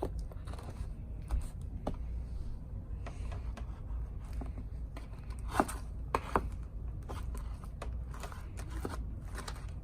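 Mixing slime in a bowl: scattered light scrapes and clicks, with two or three sharper knocks about halfway through, over a steady low hum.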